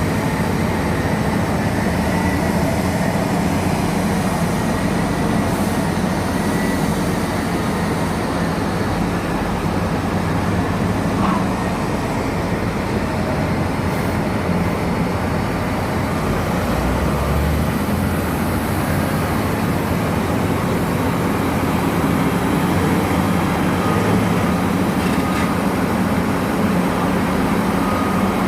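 Heavy mining machinery's diesel engines running, a loud, steady drone that holds without a break.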